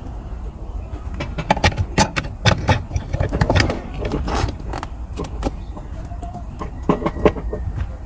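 Irregular metallic clicks and clinks from a Proton Wira's manual gear-shift linkage being handled and worked by hand while its worn-out bushes are being replaced, over a low steady rumble.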